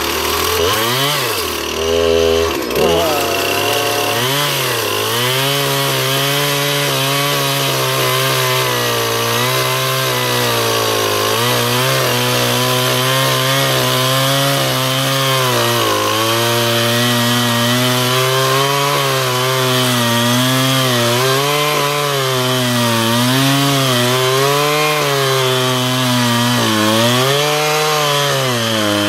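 Two-stroke gas chainsaw cutting through a dead mesquite tree, running hard the whole time. Its engine note revs up over the first few seconds, then keeps sagging and recovering as the chain bogs down in the wood under load.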